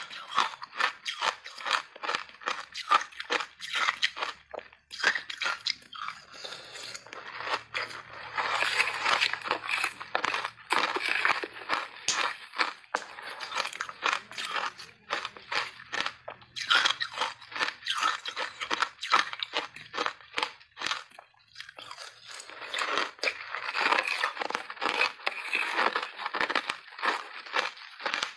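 Ice being bitten and chewed close to a clip-on microphone: a stream of sharp crunches. There are stretches of dense, continuous grinding as mouthfuls are broken down.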